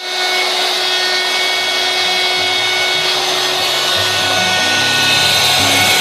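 The router spindle of a homebuilt CNC router running at speed and cutting into a wood sheet. It is a steady whine with a hiss of cutting that holds level throughout.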